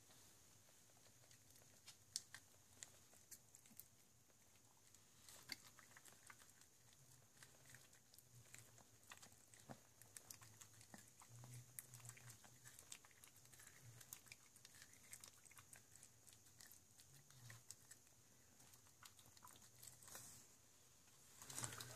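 Small dog nibbling kernels off a grilled corn cob held in a hand: faint, irregular crunching and teeth clicks, over a low steady hum.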